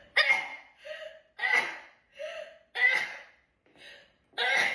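A person sneezing in a rapid-fire fit: four sharp sneezes about a second and a half apart, with short voiced catches of breath between them.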